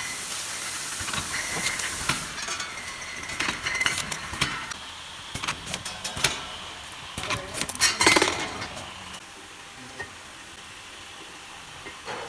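Glass bottles clinking and knocking together as they run along a bottling line, with a short hiss of air in the first two seconds. The clinks are thickest and loudest a little past the middle, then the line settles to a quieter steady run.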